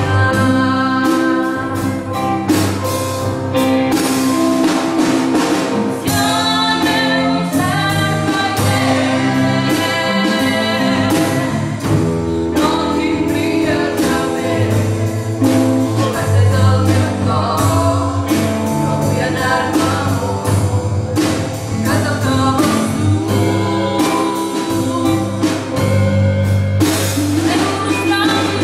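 Live musical-theatre song: a woman singing a melody at the microphone over a band with drums, steady bass notes and electric guitar.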